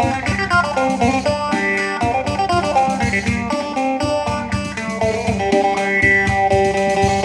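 Electric phin, the Isan plucked lute, played through an effects unit: quick plucked melody notes over a steady droning string.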